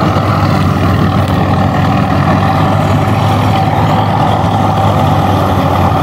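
Tractor-powered wheat thresher running steadily under load as wheat sheaves are fed in: a continuous loud drone of the tractor engine and the spinning threshing drum.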